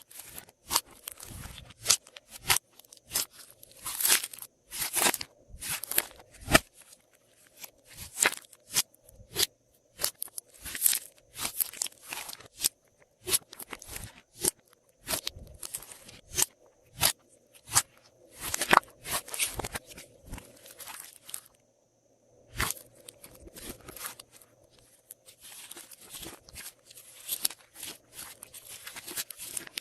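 Glossy slime being squished and mixed by hand with add-ins, giving crisp clicking and crackling pops in quick, irregular succession, with a short pause about two-thirds of the way through.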